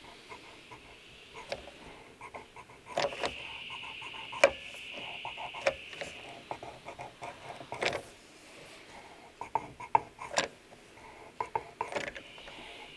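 Hot glue dent puller being tightened by hand, its threaded knob and bridge giving scattered clicks and creaks as it draws a glued pad outwards to pull a dent from a steel car door. A faint hiss comes and goes.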